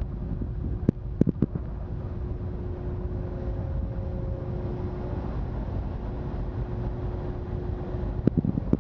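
Washington State ferry Puyallup's engines running under load as it slows into the slip, a steady low rumble with a steady hum over the churning propeller wash. A few sharp knocks come about a second in and again near the end.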